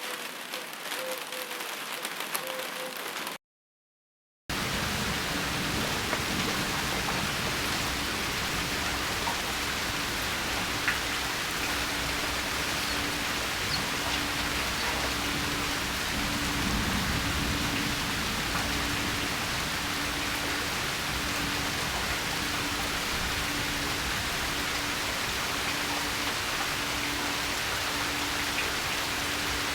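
Steady rain hiss, a dense even patter of drops. About three seconds in, one rain recording ends in a second of dead silence and the next begins, a little louder, with a faint low tone pulsing about once a second beneath it.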